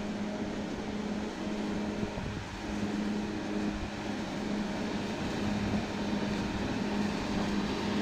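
Wheel loader's diesel engine running steadily with a constant low hum while it pushes snow with a plow blade.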